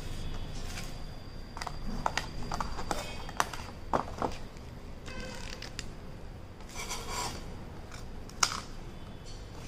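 Paper and cardboard being handled: a paper leaflet and a white cardboard box insert rustling and scraping, with scattered sharp taps and clicks as the flap and box are pushed and opened.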